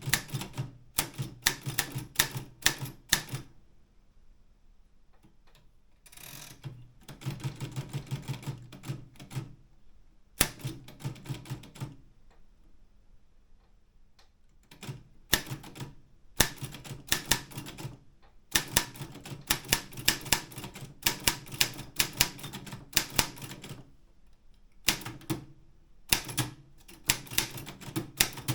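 Optima M12 manual typewriter being typed on: runs of sharp typebar strikes in quick bursts, with pauses between runs and a short scraping sound about six seconds in.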